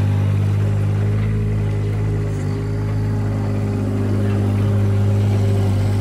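Bobcat 463 skid-steer loader's engine running steadily with a low hum as the machine drives across the yard.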